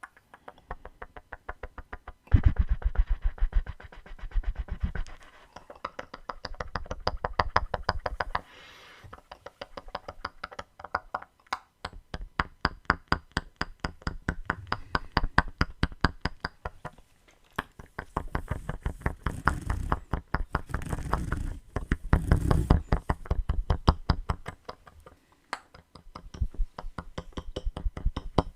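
Mouth sounds made through a hose: quick wet clicks and pops, several a second, coming in louder and quieter stretches.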